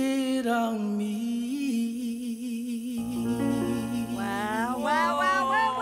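A man singing solo into a microphone, holding a long note with vibrato. About halfway through a steady low accompaniment chord comes in, and near the end his voice climbs into higher, quicker runs.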